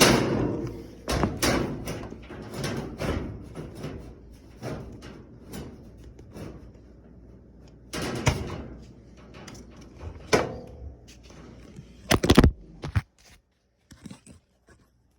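Sheet-metal rear panel of a Kenmore electric dryer being handled and fitted back into place: scattered knocks and metal rattles, the loudest a pair of knocks about twelve seconds in, then near silence.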